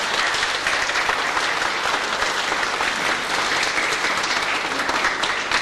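A room full of people applauding steadily, dense clapping without a break.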